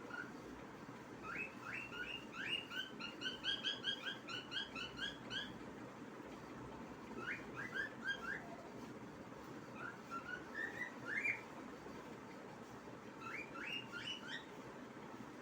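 Cockatiel singing: phrases of short, quick rising whistled notes, a long fast run in the first few seconds, then shorter bursts with pauses between them.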